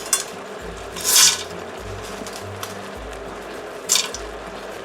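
Light background music with a steady bass pattern, over which dry fettuccine noodles rattle into the pot in short bursts. The biggest burst comes about a second in and a smaller one near the end.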